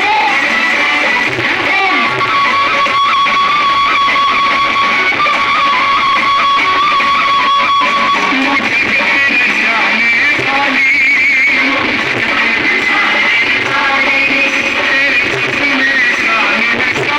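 Music with guitar, including a long held note from about two seconds in until about eight seconds in.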